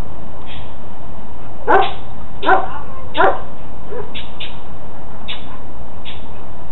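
Young Belgian Malinois barking three times in quick succession, a little under a second apart.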